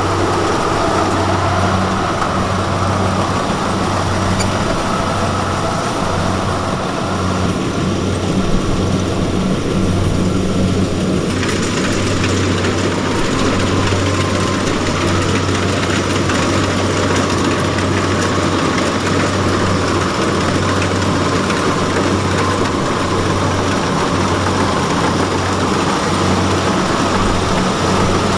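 Heavy diesel engine of rice-harvesting farm machinery running steadily, a continuous low drone with mechanical noise over it that grows brighter about eleven seconds in.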